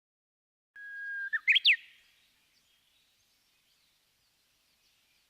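Japanese bush warbler (uguisu) singing one full 'hoo-hokekyo' phrase about a second in: a long steady whistled note, then a quick flourish of rising notes that ends sharply. Faint outdoor ambience follows.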